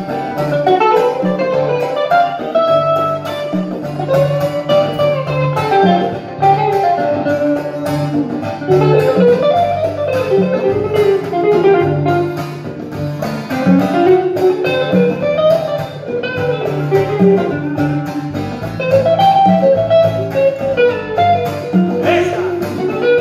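Live band instrumental break with no singing: an electric guitar plays a winding melodic lead over acoustic guitar, a steady low line and conga and drum percussion.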